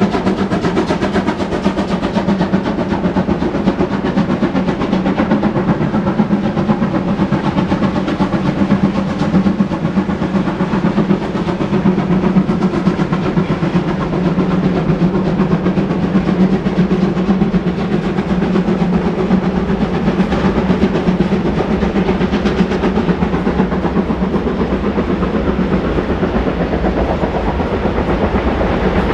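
Steam locomotive working under load, its exhaust beating in a rapid, steady rhythm over the rumble and clatter of a train's wheels on the rails.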